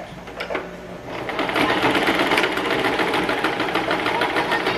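Domestic electric sewing machine stitching through a woven cotton-cord veil, running at a fast, even stitch rate. A few clicks come first, and the machine starts up about a second in.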